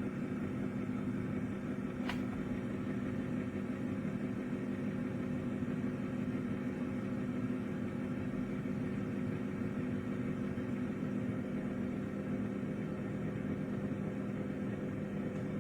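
Countertop air fryer running: a steady fan and motor hum with several fixed tones, and one faint click about two seconds in.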